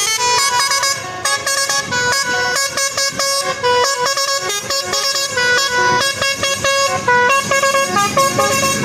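Bus telolet (basuri) multi-tone air horn playing a quick melody, several horn tones sounding together and stepping rapidly from note to note.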